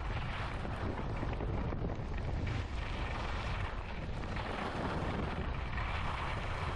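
Wind buffeting the microphone of a skier's camera on a fast downhill run: a steady low rumble with a hiss over it.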